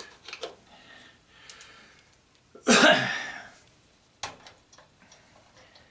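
A man's single short cough-like burst about three seconds in, with a few light sharp clicks of a hand tool on metal around it.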